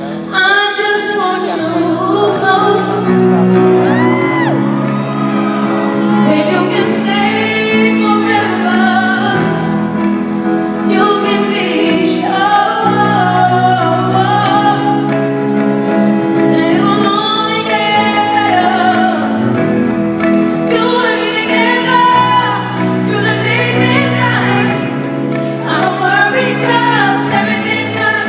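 A woman singing live to her own grand piano accompaniment, with sustained chords under her voice and the echo of a large arena.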